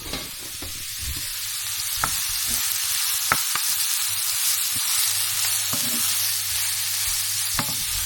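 Chopped onion and carrot sizzling steadily in hot oil in a frying pan, with a few sharp clicks of a utensil against the pan.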